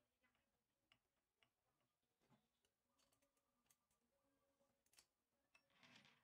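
Near silence with faint, scattered metallic clicks from the lathe's change gears being handled and turned, with locking pliers gripping them. A brief soft rustle near the end.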